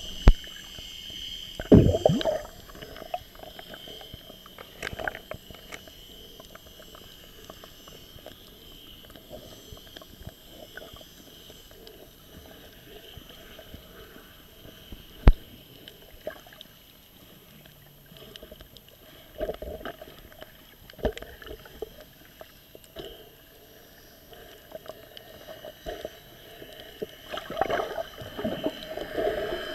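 Muffled underwater sound picked up by a camera in a waterproof housing: a steady hiss with bubbly gurgles and splashes now and then, strongest near the start and toward the end, and a couple of sharp clicks.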